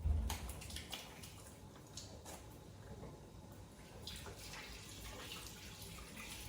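Faint kitchen handling sounds: a soft low thump at the start, then scattered light clicks and rustles from working with food and utensils.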